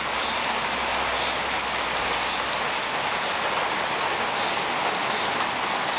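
Steady rain falling on wet pavement and grass: an even hiss with scattered ticks of individual drops.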